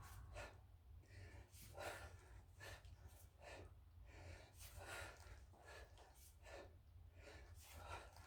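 Faint, short, rhythmic breaths in and out from a person exerting himself while lifting a kettlebell over and over, with a steady low hum underneath.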